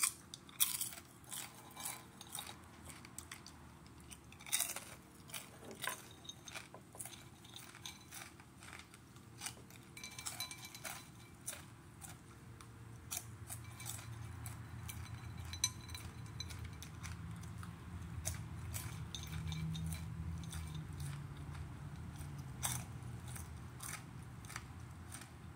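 A person chewing and crunching hot-pepper-coated popcorn close to the microphone, with irregular crisp crunches throughout and a low chewing rumble that grows from about halfway through.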